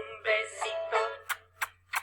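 Recorded children's action song playing: a sung voice over a backing with sharp, clicking percussion.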